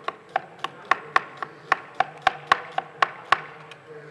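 Chef's knife chopping an onion on a plastic cutting board: a quick, even run of sharp knocks, about four a second, stopping a little after three seconds in.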